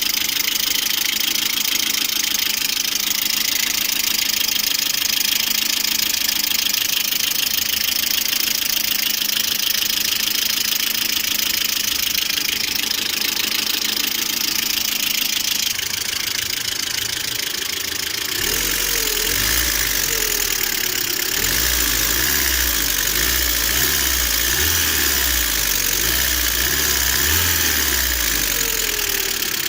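Lada Priora 21126 1.6-litre 16-valve engine idling with its hydraulic lifters knocking, a knock present both cold and hot that oil changes and a new oil pickup have not cured; the owner thinks it comes from the throttle body side. About two-thirds of the way through, a low uneven rumble joins the engine sound.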